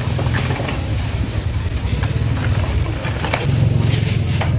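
Steady low rumble of motorbike traffic in a market street, with a few short knocks and clicks scattered through it.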